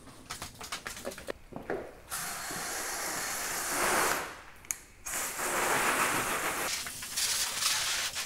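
About two seconds of rapid clicking, then water spraying from a garden-hose spray nozzle onto the car in two long bursts with a short break between them: the pre-rinse that soaks road salt and grime off the paint.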